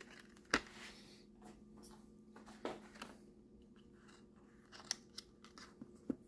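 Clear plastic clamshell packaging of a CPU being pried and handled: sharp plastic clicks and crackles, the loudest about half a second in and a few more scattered after, over a faint steady hum.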